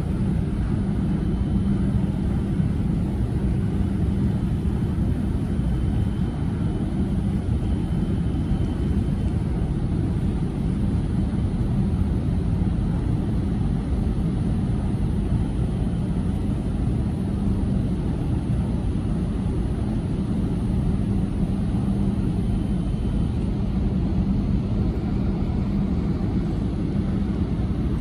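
Evergreen B-type container ship's engines running as it passes close by under way into port: a steady low rumble with a constant drone.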